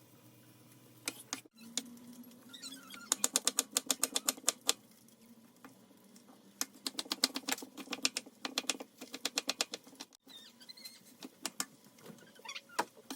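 Rapid knife chopping on a cutting board: two runs of quick, even strokes, about eight a second, with a pause between them and a few single knocks around them.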